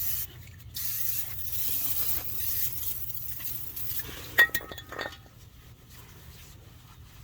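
Hissing and rubbing as grease is cleaned off a car part, then a sharp metallic clink with a short ring about four and a half seconds in, followed by a lighter clink.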